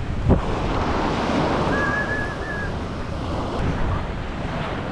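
Waves breaking on the shore under a steady rush of wind, with wind buffeting the microphone and one sharp low thump about a third of a second in. A faint, brief high tone sounds near the middle.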